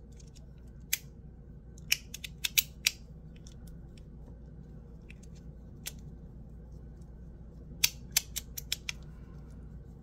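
Ti Rhythm titanium fidget slider being worked by hand, giving sharp metallic clicks. The clicks come singly and in small clusters, with a quick run of about six near the end.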